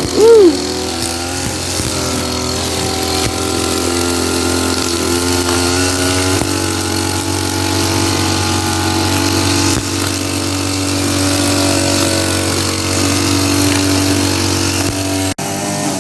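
Brush cutter's small petrol engine running steadily at working speed, its pitch wavering slightly as it cuts grass with a nylon line head.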